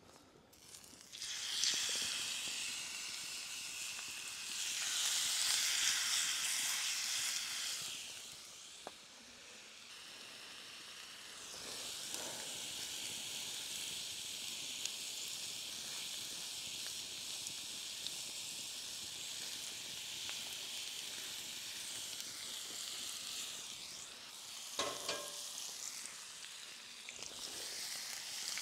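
Beef steak sizzling in a hot pan. The sizzle starts about a second and a half in and swells, dies back for a few seconds, then returns and holds steady. A few short knocks come near the end.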